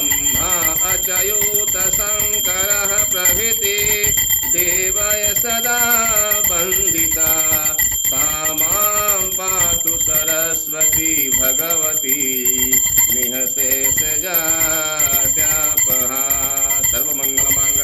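A voice singing a Hindu devotional hymn of praise (stuti) to the goddess, with a brass puja hand bell rung steadily all through it.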